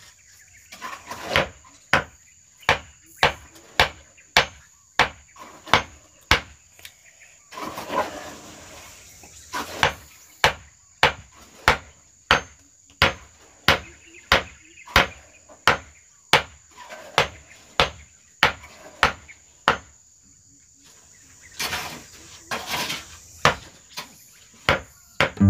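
Hammer driving nails into wooden floorboards, sharp strikes at a steady pace of a little under two a second with a couple of short pauses. A steady high insect drone runs underneath.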